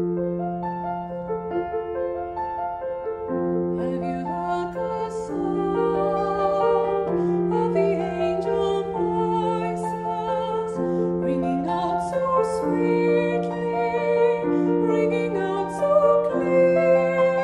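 Piano accompaniment, joined about three seconds in by a woman singing with vibrato.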